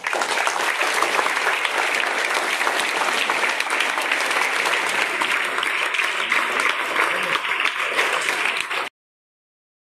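A large group of schoolchildren clapping, steady continuous applause that stops abruptly near the end.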